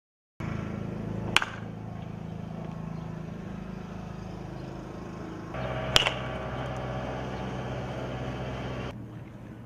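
Two sharp cracks of a baseball bat hitting a pitched ball, about four and a half seconds apart, over a steady low background hum.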